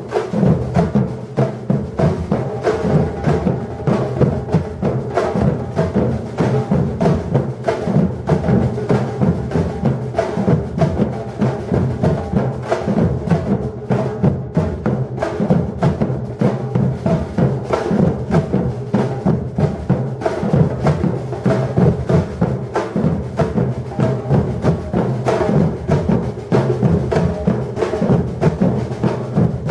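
Batucada drum ensemble playing a dense, steady rhythm, with deep bass drums the loudest and quicker higher drum strokes over them.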